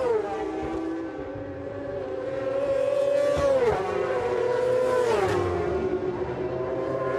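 Superbike racing motorcycles at full speed, the engine note holding high and then falling sharply three times.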